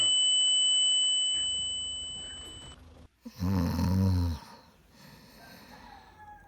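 A high ringing tone fades away over about three seconds, then one low, snore-like rumble lasts about a second.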